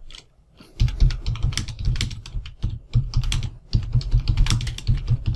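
Typing on a computer keyboard: a quick, uneven run of keystrokes that starts about a second in.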